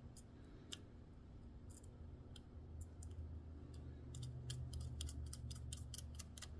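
Faint, quick metallic clicks as a small 5/16 nut is spun on by hand onto a stud in a tractor distributor, scattered at first and coming thick and fast over the last two and a half seconds, over a low steady hum.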